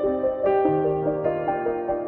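Soft instrumental background music with piano, a slow melody of sustained notes over a low held note.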